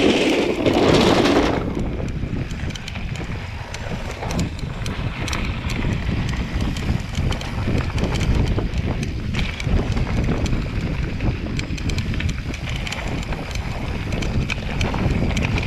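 Wind rushing over the microphone as a mountain bike descends a dirt trail, its chain and frame rattling with many small knocks over the bumps. A louder clatter in the first second and a half as the wheels cross a bamboo-slat bridge.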